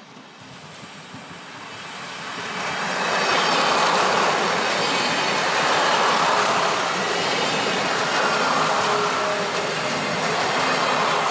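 Passenger train approaching and passing close by: the wheel and running noise swells over the first three or four seconds and stays loud as the cars go by.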